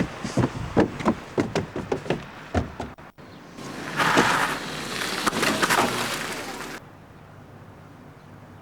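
A quick run of knocks and thumps, about a dozen over three seconds, followed by about three seconds of hissing noise that stops suddenly.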